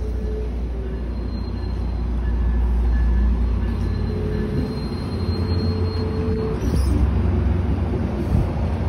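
Amtrak Piedmont passenger train running on the rails: a steady low rumble, with faint thin squeals coming and going over it.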